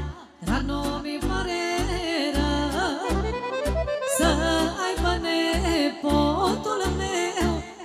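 Live Romanian lăutărească band music: an accordion plays a wavering, ornamented melody over a pulsing bass, with a woman singing into a microphone. The music drops out for a moment just after the start, then carries on.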